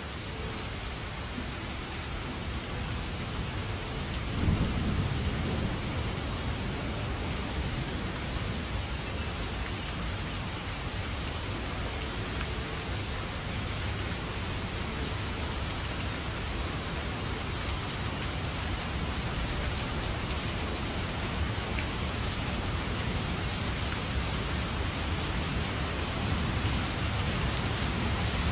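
Heavy rain falling steadily, with a rumble of thunder about four seconds in and low thunder rumbling louder again near the end.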